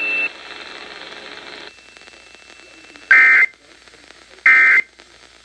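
Emergency Alert System end-of-message data code relayed over a radio: two short, loud, screeching digital bursts about a second and a half apart. This is the closing signal of the monthly EAS test.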